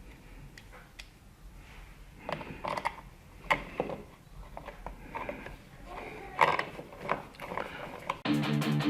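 Scattered clicks, taps and scrapes of plastic and metal as a dimmer switch and its wires are pushed back into the electrical wall box. Guitar music starts near the end.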